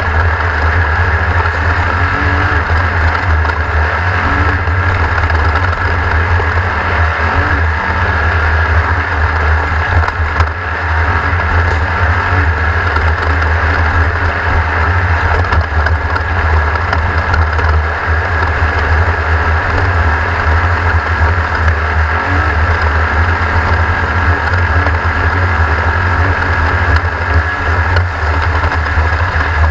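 A race vehicle's engine running steadily and loud, a deep unbroken rumble with a thin steady whine above it.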